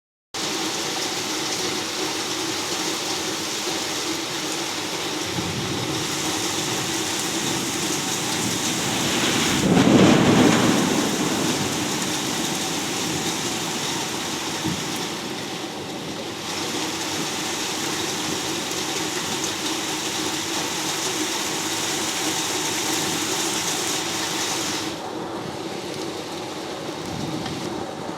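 Steady heavy rain hissing, with a rumble of thunder swelling and fading about ten seconds in.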